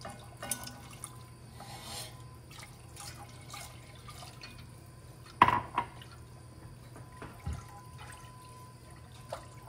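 Milk poured into a flour roux in an enamelled cast-iron pot and whisked in with a silicone whisk: liquid sloshing with light clicks of the whisk against the pot, and a sharper knock about five and a half seconds in.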